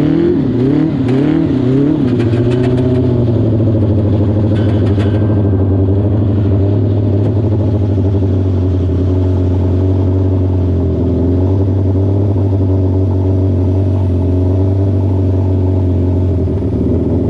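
Yamaha R6 600cc inline-four motorcycle engine in a homemade ride-on mower, revved up and down several times in the first two seconds, then running at a steady speed. A few sharp clicks in the first five seconds.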